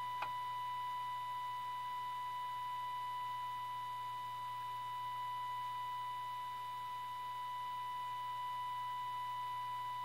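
Steady audio test tone from the 1932 Tiffany Tone radio: the signal generator's modulated 465 kHz signal coming through the set's IF stages during alignment, over a low hum. A small click sounds just after the start.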